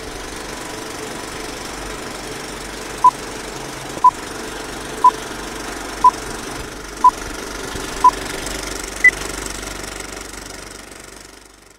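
Sound effect for a film-leader countdown intro: short beeps once a second, six at one pitch and a seventh higher, over a steady mechanical rattle that fades out near the end.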